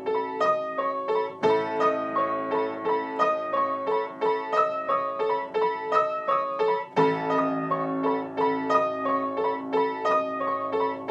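Piano music: quick repeating keyboard notes over held bass notes, the chord changing about a second and a half in and again about seven seconds in.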